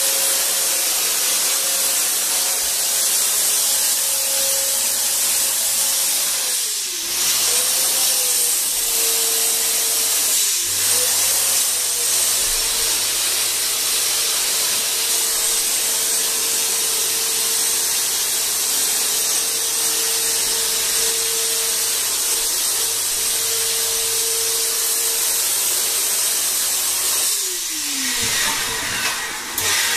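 Handheld electric ULV cold fogger running, its blower motor whining steadily under a loud hiss of spray. The motor pitch briefly drops and recovers twice in the first half, and sags lower before picking up again near the end.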